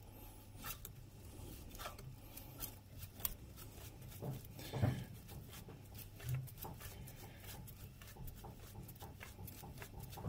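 Faint scraping and clicking as the KingQuad 500's tight spin-on oil filter is worked loose and unscrewed, over a low steady hum.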